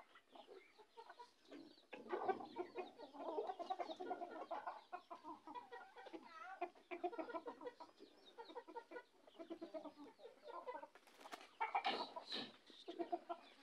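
A flock of domestic chickens clucking, many short calls overlapping continuously, with a louder burst of calls near the end.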